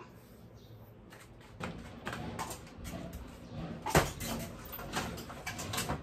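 Household handling noises: a string of soft clacks and rustles with one sharp knock about four seconds in.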